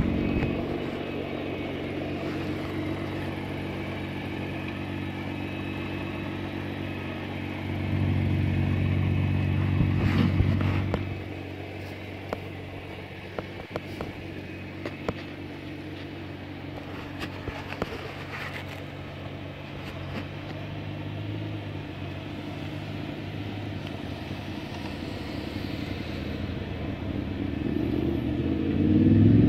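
Tuned Nissan GT-R R35's twin-turbo V6 with an Akrapovic exhaust, running at low revs as the car moves slowly. It grows louder for about three seconds around eight seconds in, then fainter, and swells near the end as the revs rise.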